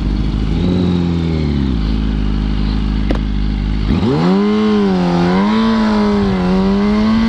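2006 Yamaha R1's inline-four engine idling, with a click about three seconds in. Then, about four seconds in, it revs up sharply and pulls away from a stop, its pitch wavering and then climbing steadily under acceleration.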